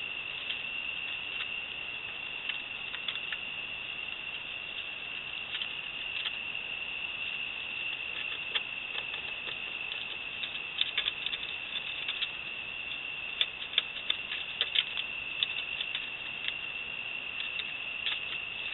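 Trail-camera audio of a steady, high night-insect chorus, with scattered clicks and rustles of raccoons moving through dry leaves around wooden trap boxes. The clicks come thickest in the middle of the stretch.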